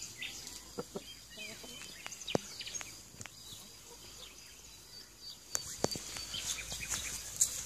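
Outdoor ambience of faint, short bird chirps over a steady high hiss, with scattered sharp clicks and taps that grow busier in the last two seconds.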